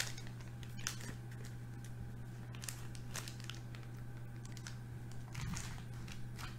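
Faint, sparse rustling and light clicks from trading cards and plastic card sleeves being handled, over a steady low electrical hum.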